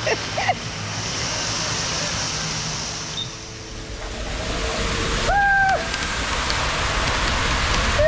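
Steady rush of water, then water rushing through an enclosed tube water slide as a rider slides down it. A short held cry rings out about five seconds in.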